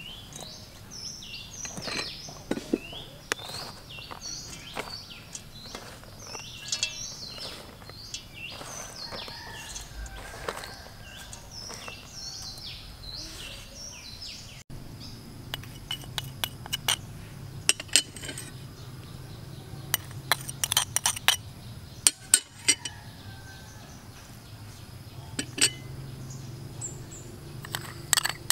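Sharp metal clinks of utensils against a stainless steel mixing bowl, in quick clusters in the second half, over steady background noise. Birds chirp repeatedly in the first half.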